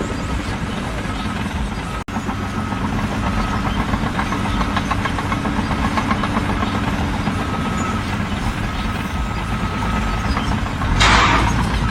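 A heavy engine running steadily, with a short hiss near the end.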